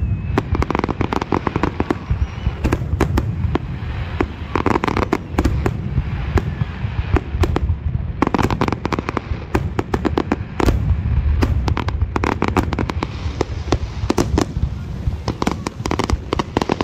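Aerial fireworks display: many sharp shell bursts in quick succession over a continuous deep rumble.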